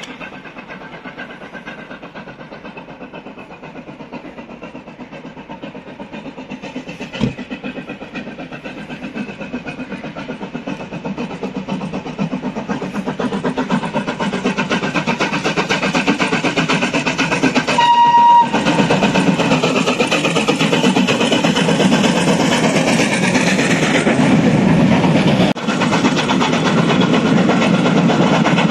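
FS 740.409, a 2-8-0 steam locomotive, running toward the listener and hauling a train of vintage carriages, growing steadily louder as it draws near and passes. About 18 seconds in it gives one short whistle toot.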